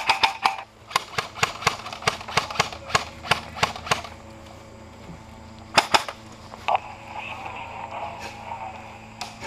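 Airsoft guns firing: a quick burst at the start, then a steady string of single shots, about four a second, for about three seconds, and a few more shots near the six-second mark.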